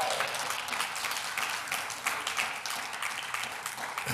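A church congregation applauding, the clapping slowly dying down toward the end.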